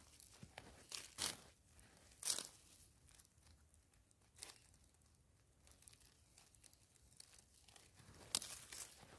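A gloved hand scraping and scratching at dry, crumbly soil and leaf litter, in a few short, irregular scuffs, the loudest about two seconds in and near the end.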